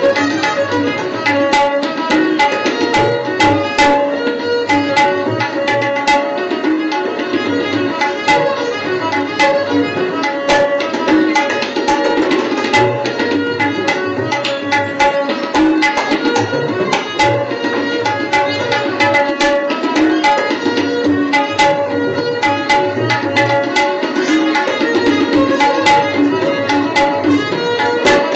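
Instrumental background music: a quick hand-drum rhythm under sustained melodic tones.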